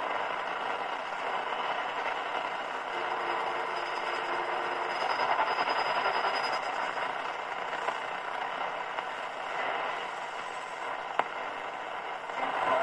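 Telefunken Bajazzo TS205 radio being tuned across the top end of the AM medium-wave band, giving a steady hiss of static with faint whistle tones that come and go. A single sharp click sounds about eleven seconds in.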